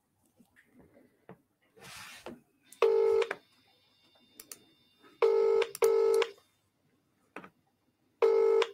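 Telephone ringing tone heard on an outgoing call: pulses of a steady buzzing tone, one of them a close double ring, signalling that the called phone is ringing. The tone cuts off at the very end as the call is answered.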